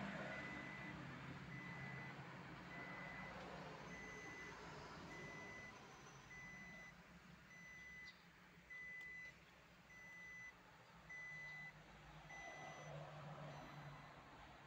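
Faint electronic warning beeps repeating at an even pace, a short high tone a little more often than once a second, typical of a car's warning buzzer sounding in the cabin.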